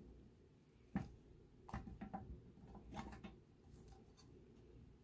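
Metal top cover of a Lenovo ThinkCentre M920q tiny PC sliding off the chassis and being lifted away: a sharp click about a second in, then a few faint clicks and scrapes.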